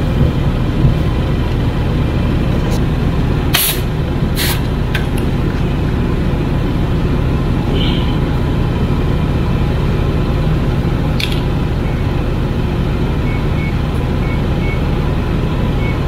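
Commercial refrigeration unit running steadily with its fan, with a few sharp clicks and, near the end, a light repeated ticking like a fan blade hitting something, which the technician suspects is ice built up inside.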